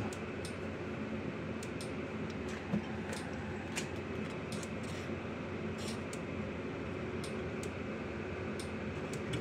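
Steady low hum of a running fan, with faint light ticks every half second or so and one soft knock about three seconds in.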